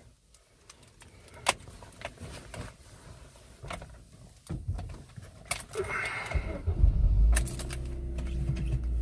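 Ignition key of a Ford car clicking and jangling, then the engine starts about six seconds in and settles into a steady low idle.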